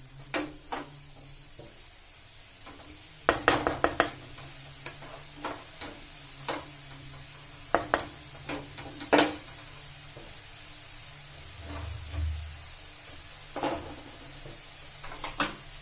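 Grated carrots sizzling in ghee in a metal kadhai, sautéed to dry off their water, while a wooden spatula scrapes and knocks against the pan in short clusters every few seconds.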